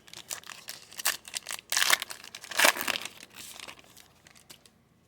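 Foil trading-card pack being torn open and crinkled: a run of crackly rustles, loudest about two seconds in, that die away near the end.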